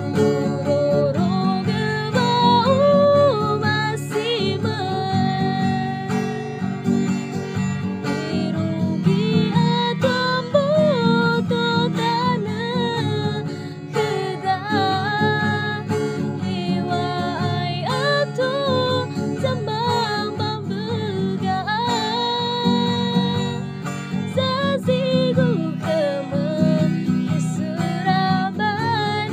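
A woman singing a song to her own acoustic guitar accompaniment, strummed chords under a gliding vocal melody.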